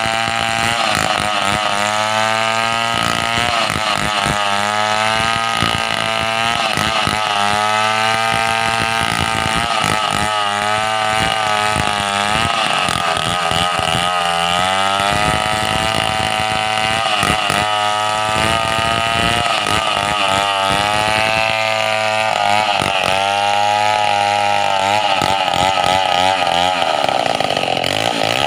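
Chainsaw engine running hard, its pitch repeatedly dipping and recovering every second or two, then rising to a higher, steadier pitch near the end.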